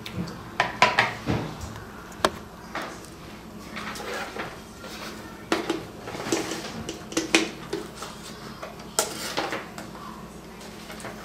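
Irregular handling noises: light knocks, clicks and rustling as an Agfa Isolette camera in its leather case is lifted out of its cardboard box and the case is opened.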